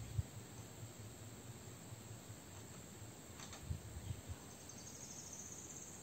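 Quiet outdoor background with faint insect chirping, which turns into a high, pulsing trill near the end. A few soft low thumps sound about a second apart near the middle.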